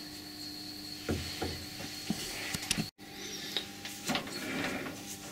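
Scattered metal clicks and knocks of a steel workpiece being seated, tightened and knocked true in a metal lathe's chuck, over a faint steady hum.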